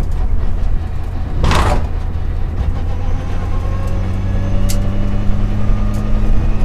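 Mitsubishi Lancer Evolution VI rally car's engine heard from inside the cabin, running steadily at low revs, its pitch rising slowly from about three seconds in. There is one short loud hiss about one and a half seconds in.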